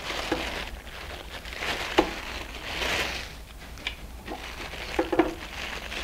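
Plastic packaging bags crinkling as they are handled, with a few light knocks as items are set down on a table.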